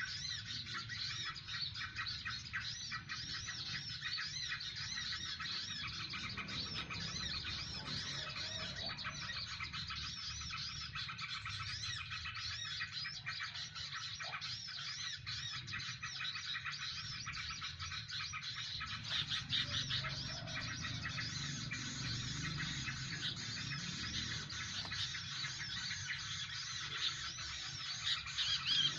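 Dense, unbroken chirping and twittering of many small birds, with quick arching calls overlapping and repeating all through.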